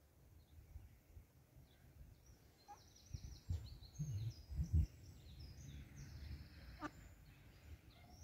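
Mallard ducklings peeping: many short, high chirps, often falling in pitch, starting about two and a half seconds in and going on through the rest. A few low, muffled rumbles about three to five seconds in are the loudest sounds.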